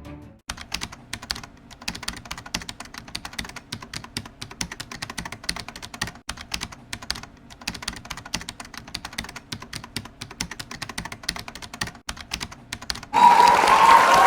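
Rapid, irregular clicking like typing on a computer keyboard, many clicks a second. Near the end it gives way to a sudden loud hiss with a held tone.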